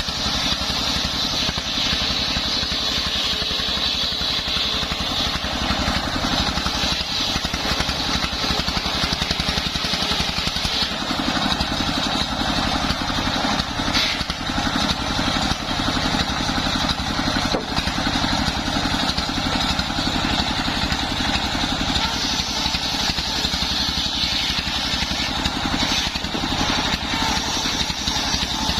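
Engine-driven homemade circular saw running steadily while sawing sengon timber into beams: a rapid, even engine firing pulse under a steady high hiss.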